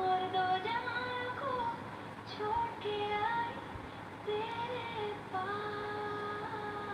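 Background music from a Hindi song: a woman singing long held, gliding notes over a soft accompaniment.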